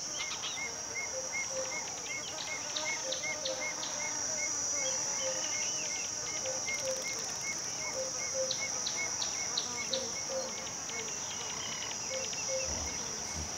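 Steady, high-pitched drone of insects, with a short chirping call repeating about three times a second underneath it.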